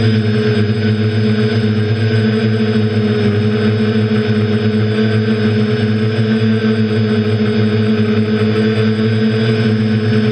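A quadcopter's electric motors and propellers whining at a steady pitch, heard from its own onboard camera.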